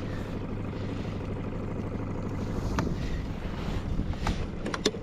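Boat motor running steadily at trolling speed, a low rumble with wind buffeting the microphone. A few sharp clicks come in the second half.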